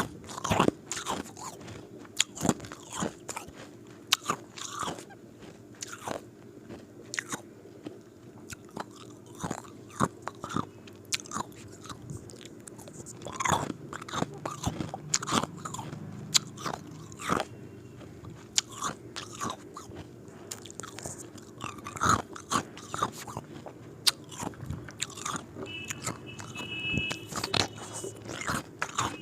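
A person biting and chewing ice cubes: sharp, irregular crunches, a few each second, over a steady low background hum.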